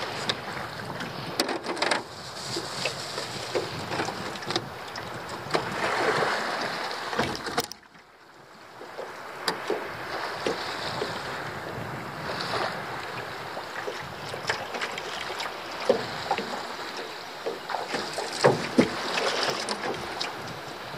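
Small dinghy being pushed off and boarded in shallow water: water sloshing and splashing around the hull, with scattered knocks of feet and oars against the boat, under wind on the microphone. The sound drops out abruptly for a moment about eight seconds in, then picks up again.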